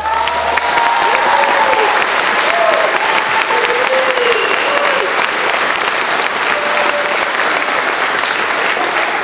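Audience applauding, with a few cheers and whoops in the first few seconds.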